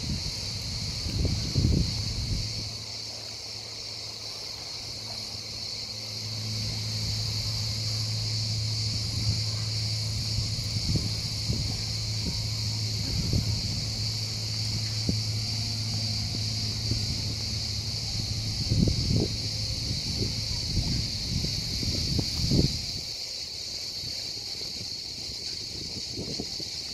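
Cicadas buzzing, a constant high drone. A low motor hum comes in about six seconds in and stops a few seconds before the end, with scattered low thumps.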